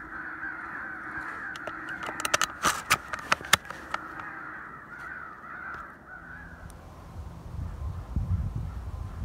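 Crows cawing in a dense, overlapping chorus that fades out about two-thirds of the way through. A few sharp clicks come around three seconds in, and a low rumble near the end.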